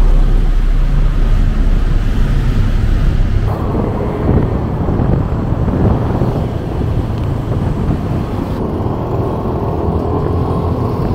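Riding on a motorcycle taxi in traffic: a steady low rumble of engine, road and wind. The sound changes abruptly twice, as if cut between shots.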